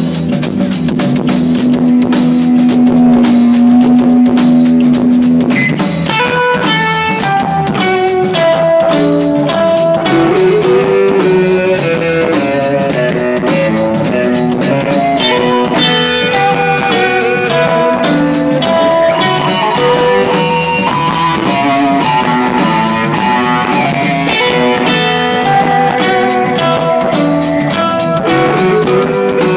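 Live rock band playing an instrumental passage on electric guitars, bass and drum kit. A single held note carries the first five seconds or so, then the guitars break into quick, busy lead lines over the drums.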